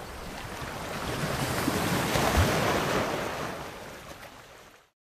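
Sea surf washing in: a rushing swell that peaks a couple of seconds in, then fades out.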